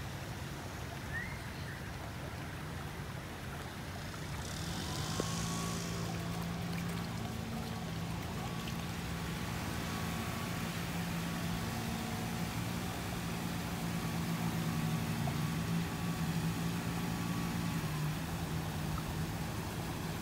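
A steady low motor hum over a wash of background noise, coming in about four seconds in and fading near the end.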